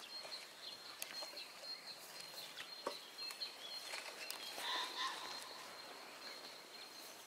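Quiet rural outdoor ambience: faint bird chirps, a thin steady high-pitched tone, and scattered light clicks.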